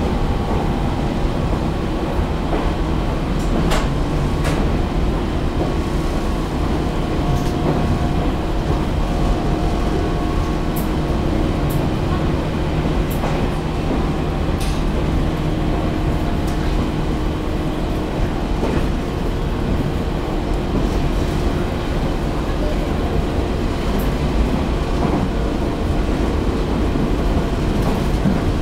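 Inside the cabin of a JNR-type resistor-controlled electric train, which the uploader believes to be a 413 series, running steadily: an even rumble of wheels on rail under a steady motor hum. A scattering of sharp clicks comes through now and then.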